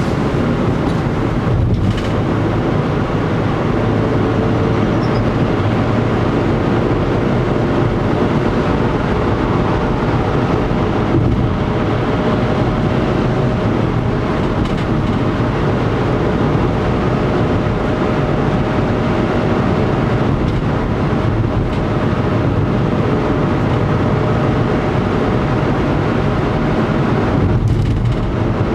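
Car driving at a steady speed, heard from inside the cabin: a continuous mix of engine drone and tyre noise on the road, with a faint steady hum.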